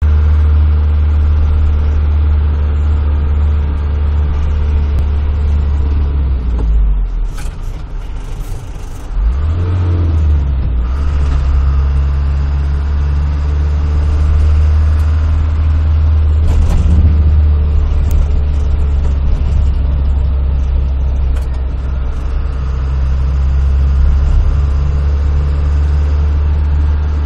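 Engine and road noise of a moving car, heard from inside the cabin: a steady low drone that falls away for about two seconds some seven seconds in, then comes back with a short rise in pitch and runs steadily again.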